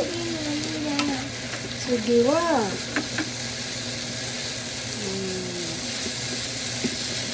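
Diced onions and tomatoes sizzling as they sauté in a frying pan, stirred with a wooden spatula that scrapes and taps against the pan now and then.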